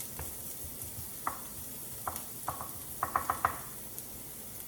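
Chopped white onions sizzling in hot olive oil in a pan while being stirred, with a utensil clinking against the pan a few times, several in quick succession about three seconds in.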